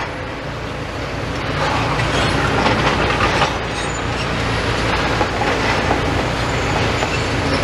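Steady rumble of road traffic and heavy demolition machinery working, getting somewhat louder about a second and a half in.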